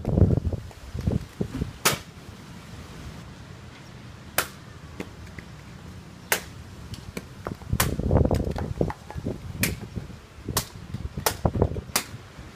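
Katana cuts through foam pool-noodle targets: a series of sharp cracks, one every second or two, with low rumbling swishes near the start and about eight seconds in.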